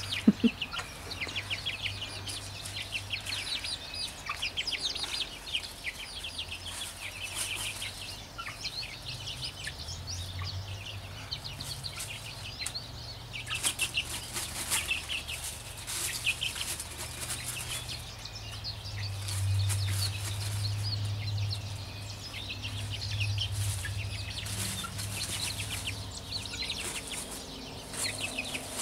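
Young backyard hens calling in short, quick runs of high notes, on and off throughout, over a low hum that comes and goes.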